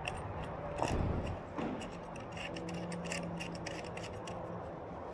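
Handling noise from fitting the power cable to a portable traffic light: a series of small clicks and rubbing, with a louder thump about a second in.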